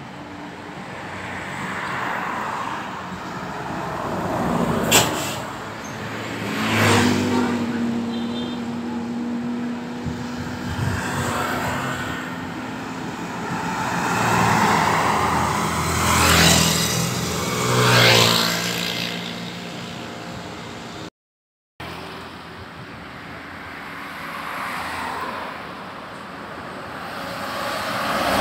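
Road traffic passing close by: several vehicles go past one after another, each swelling and fading, with a sharp knock about five seconds in and a brief dropout about three-quarters through.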